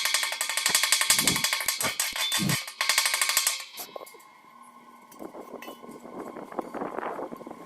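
Stick (arc) welding on thin pipe: the electrode arc crackling loudly for about three and a half seconds, breaking off, then crackling again more quietly about a second later.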